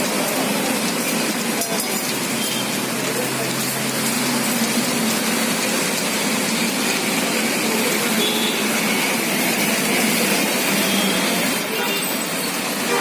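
Heavy rain pouring steadily, a dense even hiss, with a few faint short tones now and then.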